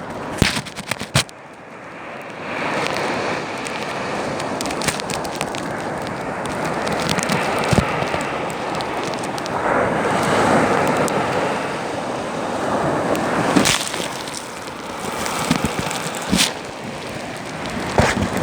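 Sea waves washing onto the shore: a broad rushing swell that builds about two seconds in and surges again near the middle. Sharp clicks and crackles come at the start.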